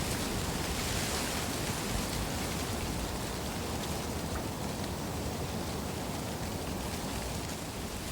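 Wind blowing through a stand of reeds: a steady rushing rustle with a low wind rumble underneath.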